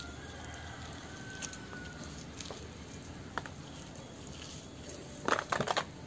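A knife and hands working a raw chicken gizzard on a banana leaf: a few faint scattered clicks, then a quick run of sharp crackling taps about five seconds in, over steady low background noise.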